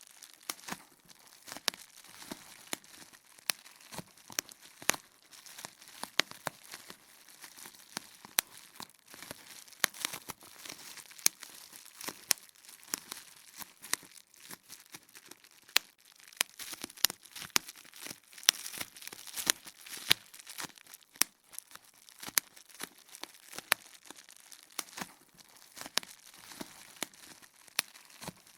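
Bubble wrap popping: irregular sharp pops, a few a second, over the crinkling of the plastic sheet.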